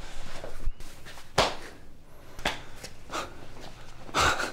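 Two men hugging: breathing and clothing rustle, with a few short, sudden noisy sounds, the loudest near the end.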